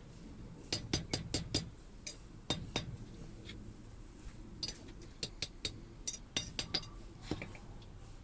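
Hammer striking an iron bar on a blacksmith's anvil in runs of quick, light blows: a cluster of about five near the start, two more a little later, and a longer run of a dozen or so in the second half.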